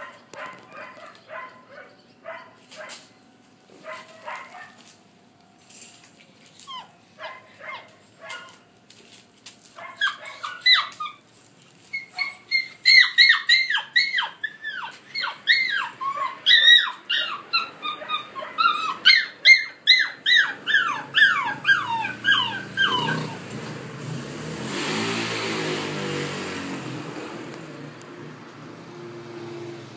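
Rough collie puppies yipping and barking in quick high-pitched bursts, several calls a second, each falling in pitch. They start sparse and soft, then turn rapid and loud through the middle. Near the end a rushing noise swells and fades.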